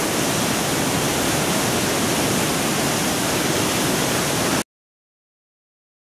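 Athabasca River waterfall, a steady loud rush of water pouring into a rock gorge, cut off abruptly about four and a half seconds in.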